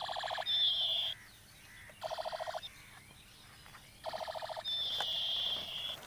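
Electronic sound effect from a battery-powered toy gun: a rapid rattling burst lasting about half a second, three times about two seconds apart, the first and last each followed by a high, slightly falling tone.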